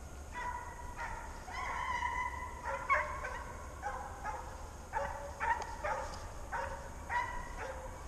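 Deer-hunting hounds baying on the trail of a jumped deer: a run of short, pitched bays about one every half second to second, with one longer drawn-out bay about two seconds in.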